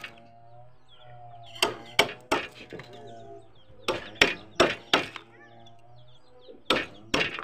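Hammer striking a wood chisel to cut a notch into a wooden post: sharp knocks in short runs of three to five blows with pauses between.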